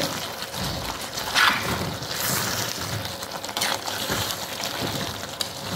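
A steel spoon stirring thick chicken curry in a pot, giving a steady wet sloshing of the gravy. A few sharper scrapes of the spoon against the pot come about a second and a half in and again near four seconds.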